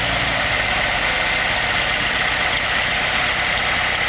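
Ford Model T four-cylinder engine idling steadily with an even, fast chugging beat.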